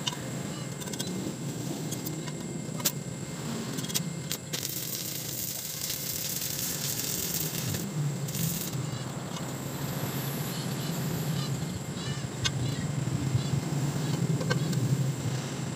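Stick welding on a steel pipe: a few sharp ticks as the electrode is struck, then the arc crackles and hisses for about three seconds midway, with a shorter burst just after.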